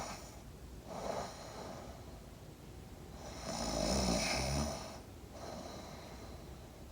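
A man faking loud snoring. A longer raspy, rattling snore comes in the middle, with softer hissing breaths before and after it.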